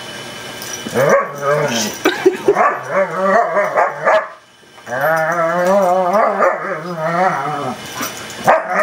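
A German Shepherd and a golden retriever puppy at rough play, with drawn-out, wavering play growls that start about a second in. There is a short break near the middle, then a second long stretch of growling.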